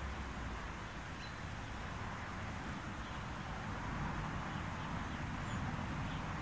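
Outdoor ambience: a steady low rumble and hiss with a few faint bird chirps.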